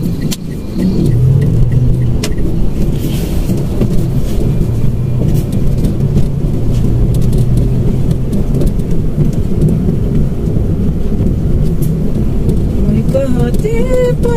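Mitsubishi Mirage's engine and road noise heard from inside the cabin while driving, a steady low hum with a held engine tone. Near the end a voice comes in over it.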